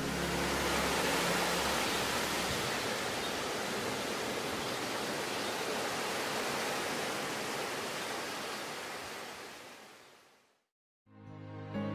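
A steady, even rushing hiss with no tune in it, fading away to silence about ten seconds in. The last low notes of a song die out during the first second or so.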